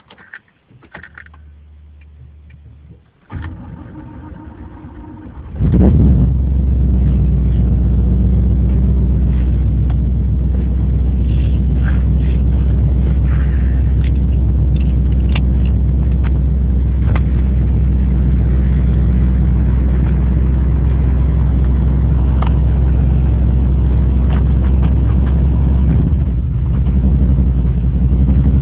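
Chevrolet Caprice Classic 5.0 V8 started from cold with the key: the starter cranks for about two seconds, the engine catches with a short rev flare, then settles into a steady idle. Near the end the note dips briefly and changes as the car pulls away.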